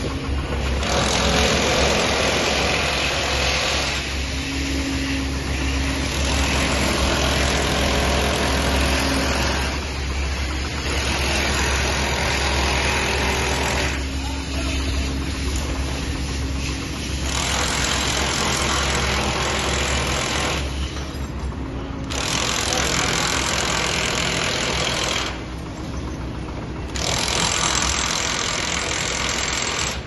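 Heavy construction machinery, chiefly an excavator's diesel engine, running steadily with a low rumble under a wash of site and street noise; the higher noise drops away briefly a couple of times in the second half.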